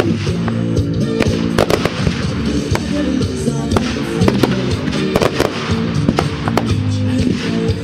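Fireworks bursting in an irregular string of sharp bangs and crackles, over loud music played as the show's soundtrack.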